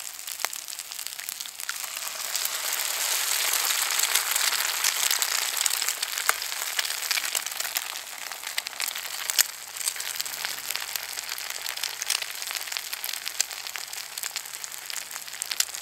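Diced potato, sausage meat and onion frying in a cast iron skillet over a wood-burning hobo stove as eggs are cracked into the pan; the sizzle swells a couple of seconds in and stays strong for a few seconds, with scattered sharp pops.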